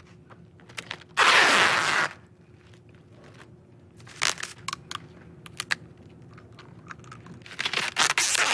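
Sticky tape ripped off its roll in one loud, second-long rip, followed by small crinkles and taps of cardstock being handled. More tape rips off the roll near the end.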